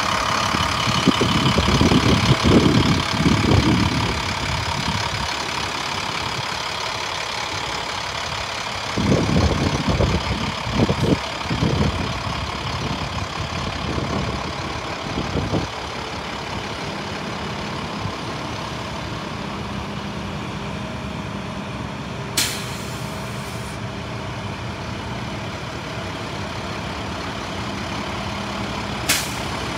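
2010 International 7400 garbage truck's diesel engine idling steadily. Wind buffets the microphone in the first half, and there is a brief hiss about 22 seconds in.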